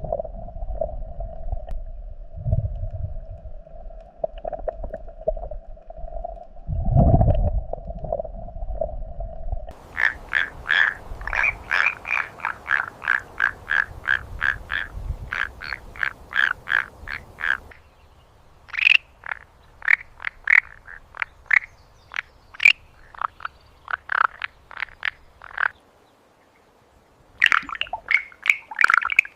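Frogs croaking: rapid runs of short, repeated calls, about three a second, starting about ten seconds in and coming in broken bursts later on. Before that, a steady drone with a few low thumps.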